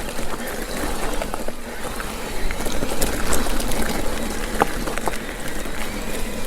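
Mountain bike ridden on a dirt trail: steady tyre and ride noise with scattered sharp clicks and rattles.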